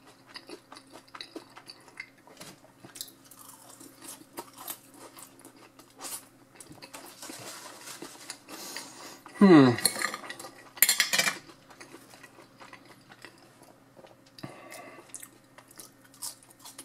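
Eating sounds: a metal fork clinking and scraping on a ceramic plate and chewing, with many small clicks. About nine seconds in there is a short vocal sound that falls in pitch, and just after it a loud clatter.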